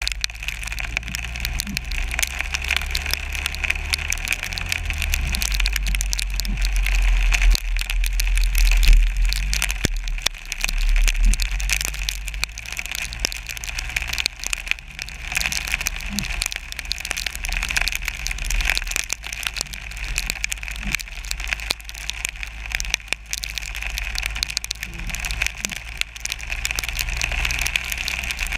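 Wind and low driving rumble on a hood-mounted GoPro during an ice storm, with many small ticks and crackles of freezing rain striking the camera housing. The rumble swells for a few seconds about a third of the way in.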